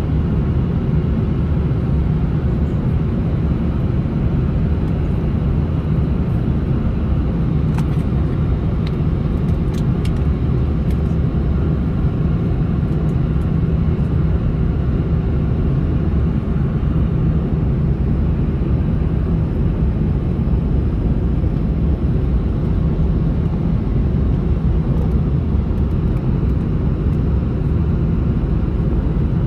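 Steady cabin noise inside an Airbus A330-300 on approach, heard from a window seat beside the underwing engine: an even, low rumble of engine and rushing airflow.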